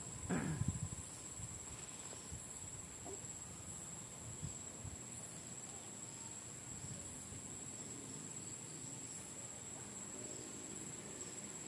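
Steady high-pitched insect drone with a fainter chirp pulsing about once a second. A short falling whoosh comes about half a second in.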